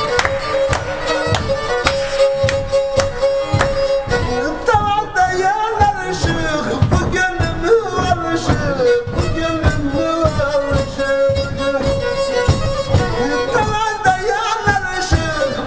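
Karadeniz kemençe (Black Sea three-string bowed fiddle) playing a lively folk tune, with a steady, quick beat throughout.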